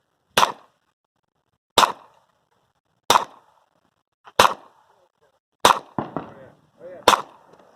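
Six revolver shots fired at a steady pace, about one and a third seconds apart, each followed by a short ring. Two fainter cracks come just after the fifth shot.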